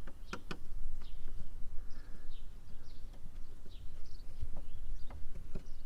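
Small birds chirping faintly and repeatedly over a low rumble, with two sharp clicks about half a second in.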